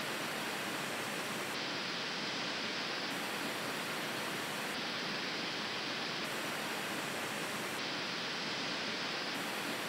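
Pink noise played through a small Bluetooth speaker and picked up a few inches away by a Shure Beta 87A condenser microphone in a shower: a steady, even hiss. Its highest treble drops a little and comes back about every second and a half.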